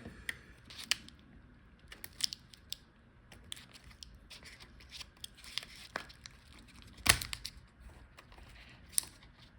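Scattered small clicks and scrapes of hands and a tool working on a laptop's internal parts while the battery connector is released, with the sharpest click about seven seconds in and another about nine seconds in.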